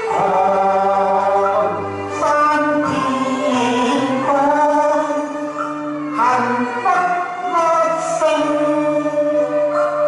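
A man singing a Chinese song into a handheld microphone, holding long wavering notes over instrumental accompaniment.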